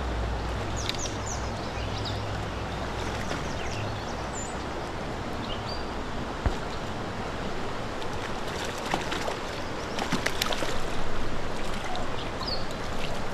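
Creek water running steadily around a wading angler, with a spell of splashing about two-thirds of the way through as a hooked trout is drawn into a landing net.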